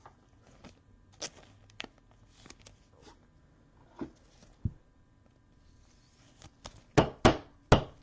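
Trading cards handled on a tabletop: scattered light clicks and taps, then three loud knocks close together near the end.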